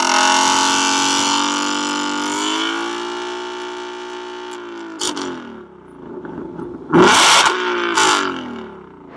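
2020 Ford Mustang Shelby GT500's supercharged 5.2-litre V8 revving while parked, its active exhaust set to Track mode. The revs fall back and fade over the first few seconds, a sharp pop comes about five seconds in, then two quick, loud throttle blips follow about seven and eight seconds in.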